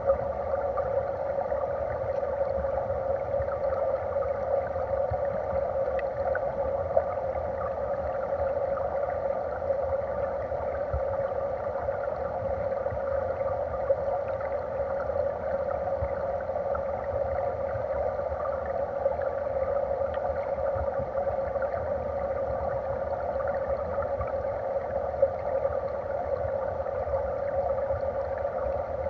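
Steady rush of flowing stream water heard underwater through a submerged camera, with a few faint ticks scattered through.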